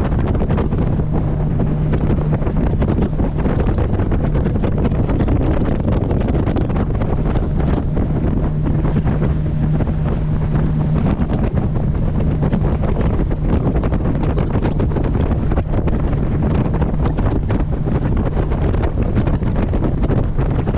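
Wind buffeting the microphone on a moving boat, over a steady low engine drone and water rushing past the hull.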